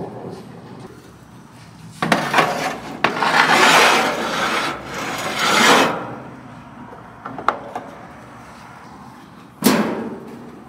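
Food preparation: rough scraping and rubbing strokes between about two and six seconds in, a few light clicks, then a sudden knock near the end.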